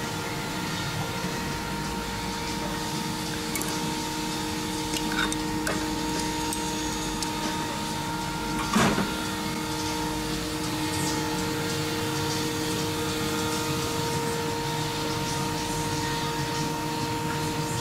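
Steady machine hum and whine of shop equipment running in the background, with a short metal clatter about nine seconds in as pliers are taken from a toolbox drawer.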